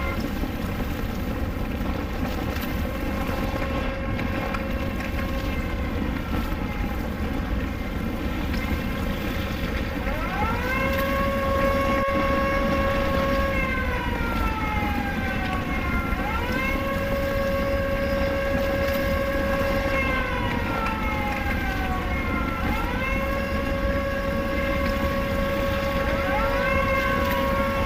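Air-raid siren wailing: it rises, holds its pitch for a few seconds and falls slowly, repeating about every six seconds and louder from about ten seconds in, over a steady low noise.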